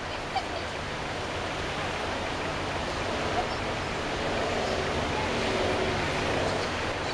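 Steady road traffic noise from cars and a bus crossing the road ahead, heard from inside a vehicle over a low steady hum, swelling a little after the middle.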